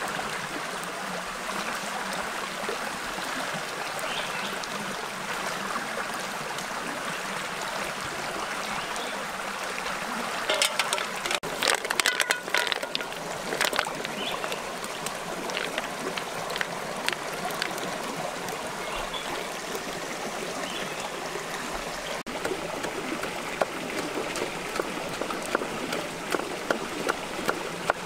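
A stream running steadily. About ten seconds in comes a few seconds of clattering as shellfish are tipped into a metal pan, and near the end a wood fire crackles with scattered sharp snaps.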